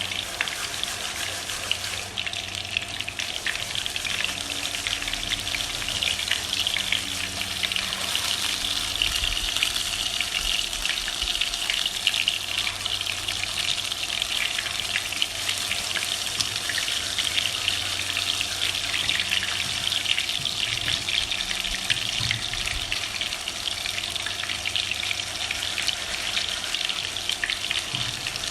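Breaded shrimp deep-frying in hot oil: a steady, dense crackle and sizzle.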